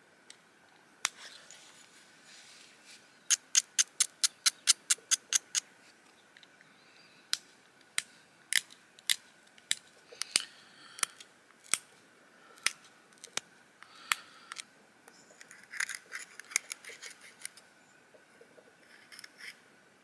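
Pressure flaking a grey stone flake with a pointed flaker against a leather hand pad: sharp clicks as small flakes snap off the edge, a quick run of about a dozen between about three and five and a half seconds in, then scattered single clicks. Softer scraping around ten and sixteen seconds in.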